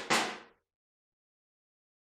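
Metal clanks from hand tools working on an electric motor's end-bell bolts: the ringing tail of one knock and a second sharp knock just after it, both dying away within about half a second.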